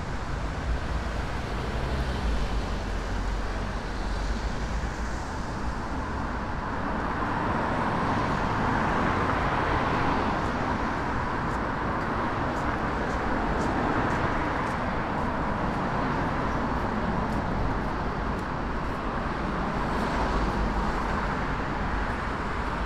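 Steady city road traffic: cars passing on a multi-lane street beside the sidewalk, swelling louder for a while in the middle as vehicles go by.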